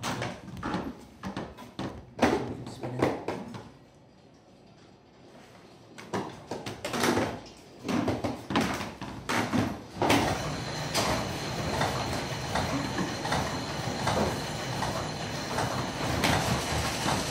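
Sighișoara clock tower's iron clockwork in motion: irregular clanks and knocks from its levers and gears, a lull about four seconds in, then clattering again. From about ten seconds in, a steady mechanical running with a faint high whine and regular clicks as the striking train turns.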